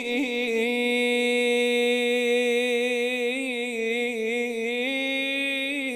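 A man singing unaccompanied, holding one long, ornamented note whose pitch wavers up and down: the drawn-out 'ayni' of an Arabic religious praise song to the Prophet.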